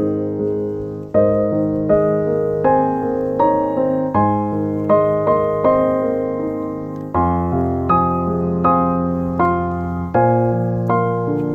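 Background piano music: a slow, gentle melody of struck notes over changing chords.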